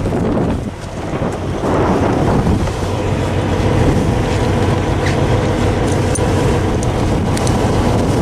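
Diesel truck engine running steadily, its hum rising in level about two seconds in and holding, with wind buffeting the microphone at first and a few faint clicks later.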